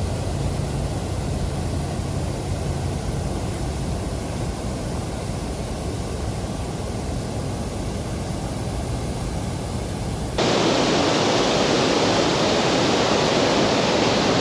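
Rushing creek water, a steady hiss that switches abruptly about ten seconds in to a louder, brighter rush, as of a faster riffle.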